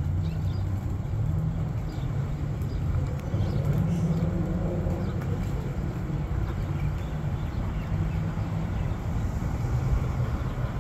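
Steady low outdoor rumble of background noise, with no distinct events standing out.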